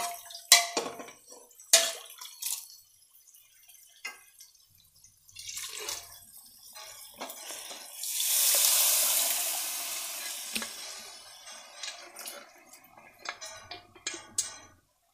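Boiled chickpeas and their cooking water poured from an aluminium pressure cooker into a kadhai of fried masala: a loud watery rush about eight seconds in that fades away over a few seconds. A metal spoon clinks against the cooker before it, and a steel ladle clinks in the pan near the end.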